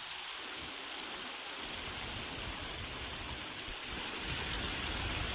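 Steady rush of water with an uneven low rumble of wind on the microphone.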